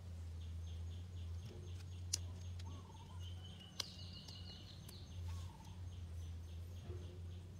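Birds calling: a short rising call repeated about every second and a half and a fast pulsing chirp, over a steady low hum. Two sharp clicks come about two seconds in and just before four seconds.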